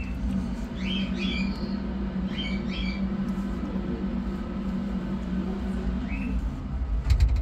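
About two-week-old kittens giving short, high squeaking mews, several in quick pairs over the first three seconds and one more about six seconds in, over a steady low hum. A few sharp clicks come just before the end.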